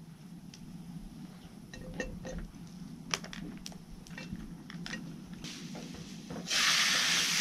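Wooden chopsticks clicking and scraping in a small frying pan as beef fat and garlic slices fry gently. About six and a half seconds in, a loud, steady sizzle starts suddenly as a beef steak is laid into the hot fat.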